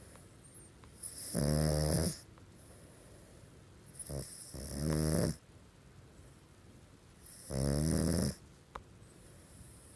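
Pug snoring loudly in its sleep: three pitched snores about three seconds apart, each under a second long, the second one preceded by a short catch of breath.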